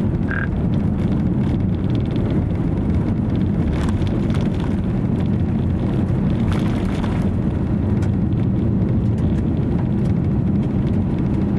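Steady low rumble of wind on the microphone, with a brief high chirp about half a second in.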